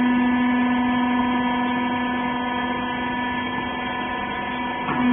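Hydraulic baler press's power unit, its electric motor and pump humming steadily at one even pitch, with a brief faint swell just before the end.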